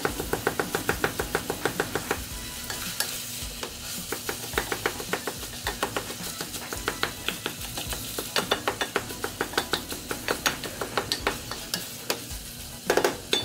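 Sausage frying and sizzling in a pan while a utensil stirs and breaks it up. The utensil knocks against the pan in quick taps, about seven a second at first and then more irregularly, with a louder clatter near the end.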